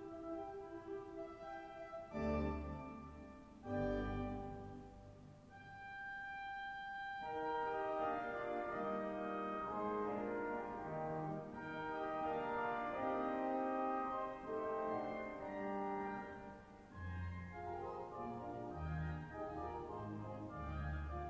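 Cathedral pipe organ playing classical music in sustained chords, with deep pedal bass notes entering about two and four seconds in and again near the end.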